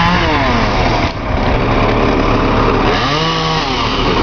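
Chainsaw engine coming off full throttle and dropping toward idle in the first second, then revved briefly up and back down about three seconds in, over steady loud machinery noise.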